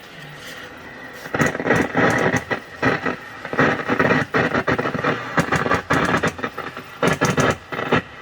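High-voltage arcing inside a 1965 Curtis Mathes colour television: loud, irregular crackling and snapping in uneven bursts, starting about a second in and running for several seconds. The arc is taken as the reason the set has no high voltage.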